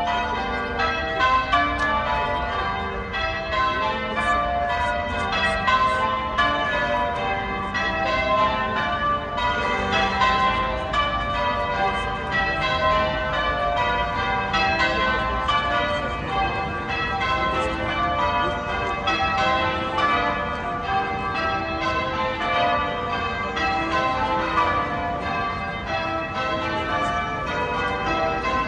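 Peal of church bells from St. Patrick's Cathedral tower ringing without a break, many bells struck one after another in quick succession, rung as the mass ends.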